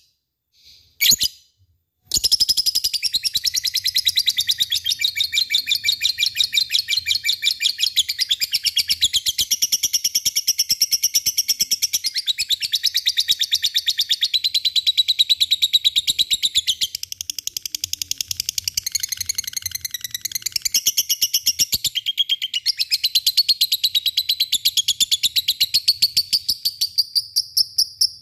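A lovebird's long, rapid chattering trill ('ngekek'): high, shrill notes repeated many times a second. It starts about two seconds in after a couple of short chirps, and pauses briefly about three quarters of the way through before carrying on.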